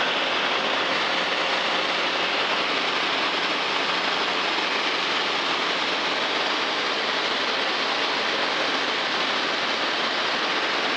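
Steady in-flight noise inside a Zenith STOL CH 750 light kitplane: engine, propeller and wind blended into an even rushing hiss that does not change.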